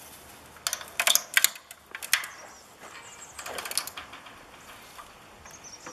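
Hand-cranked come-along ratchet winch being tightened a couple of strokes, its pawl clicking sharply. Then a softer rasp as the cable takes up tension, pulling a fence post straight.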